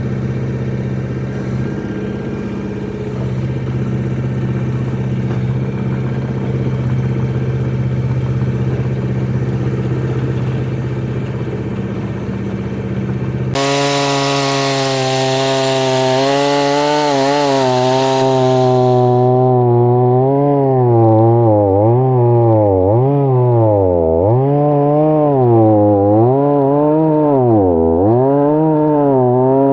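An engine runs at a steady pitch. About 13 seconds in it gives way abruptly to a chainsaw running, first with a hiss on top, then with its pitch dipping and recovering again and again.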